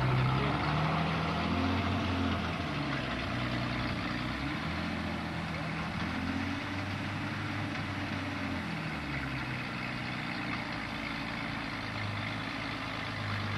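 1956 Ford Zephyr Mk II straight-six engine idling, its pitch shifting a little up and down. The exhaust sounds loud and noisy because of holes in the exhaust pipe coming from the engine.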